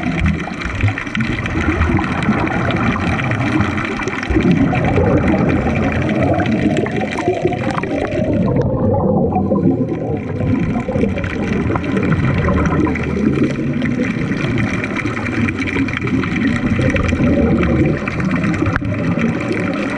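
Underwater gurgling and bubbling from scuba divers' exhaled regulator bubbles, with steady water noise, picked up through an underwater camera. The sound is dense and mostly low, and its higher hiss drops away for a second or so about nine seconds in.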